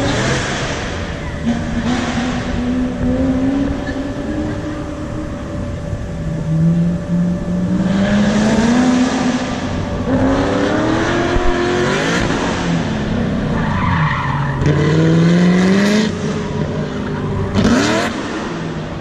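A car's engine accelerating hard and lifting off again and again as it runs an autocross cone course, the pitch climbing in repeated surges, with brief bursts of tyre squeal in the corners.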